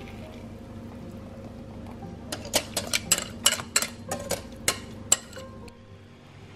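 A quick run of about a dozen sharp clinks and taps of kitchenware, glass bowl and utensil knocking while cake batter is poured and scraped into a cake tin, bunched into about three seconds in the middle, over soft background music.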